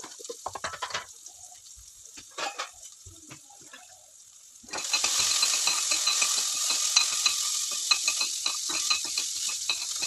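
Chopped onions and cumin frying in a little oil in a stainless-steel pressure cooker pan, stirred with a metal spoon. At first there are only light scattered clicks. About halfway through, a loud sizzle with crackling and spoon scrapes starts suddenly.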